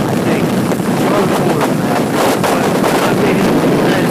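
Wind buffeting the camera's microphone on a moving motorcycle: a loud, gusty rush. The bike's engine and road noise run beneath it.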